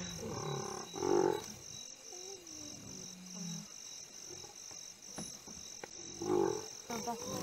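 Lions growling in short bursts while feeding on a carcass, about a second in and again near six seconds. Behind them runs a steady, evenly pulsing chorus of crickets.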